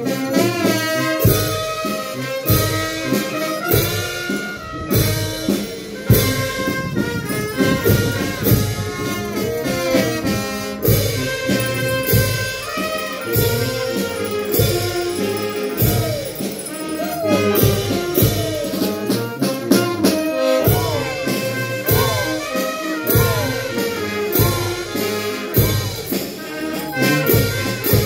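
Live band music with brass and saxophone playing a lively dance tune over a steady drum beat, accompanying a Peruvian negrería dance.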